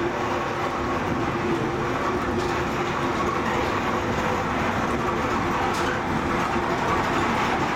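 Zecca–Righi funicular car running uphill through its tunnel, heard from inside the cab: a steady rumble of wheels on rail with a faint steady hum.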